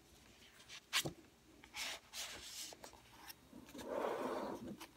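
Paper pages of a hardback junk journal being handled and turned: a sharp tap about a second in, then paper rustling and rubbing as a page is turned over near the end.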